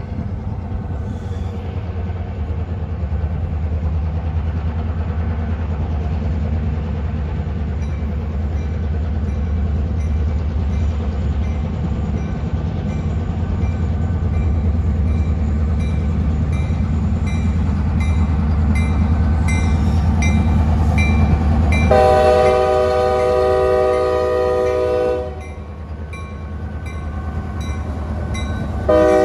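Norfolk Southern diesel freight locomotive approaching and passing, its engine a steady low rumble that grows louder as it nears. About 22 seconds in its air horn sounds one blast of about three seconds, a chord of several tones, and a second blast starts just at the end.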